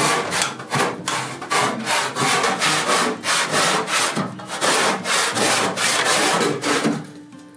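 Hand saw crosscutting through the end of a thick glued-up wooden benchtop: steady back-and-forth rasping strokes at about two a second, which stop near the end.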